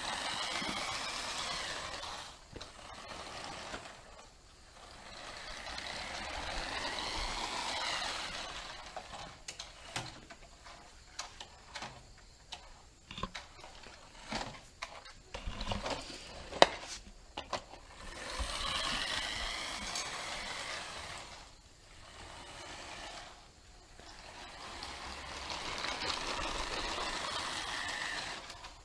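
Toy-grade New Bright RC buggy's tiny electric motor and plastic gearbox whining in runs of a few seconds as the car drives, the pitch rising and falling with each run. In the middle comes a run of clicks and knocks as the car bumps about against a table's legs, with one sharper knock. The motor is tiny and way underpowered.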